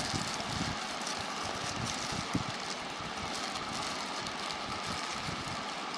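Steady background noise, like distant traffic or a room fan, with a few faint clicks; one is a little sharper about two and a half seconds in.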